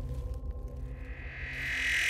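Horror film score: a low, dark drone, with a high swell that grows steadily louder from about halfway through, building tension.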